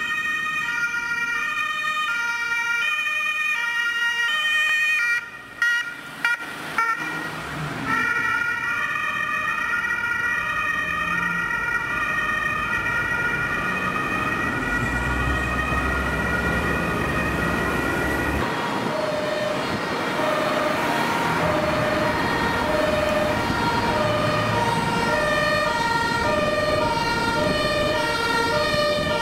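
German two-tone emergency siren (Martinshorn) on ambulances running with blue lights, switching back and forth between two pitches, with road traffic running underneath. The sound breaks off briefly a few seconds in where the footage cuts to another vehicle.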